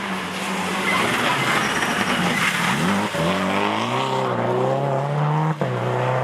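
Subaru rally car's turbocharged flat-four engine under hard acceleration as it passes. The pitch dips about three seconds in, then climbs steadily through the gear, with a brief break and a sharp crack about five and a half seconds in.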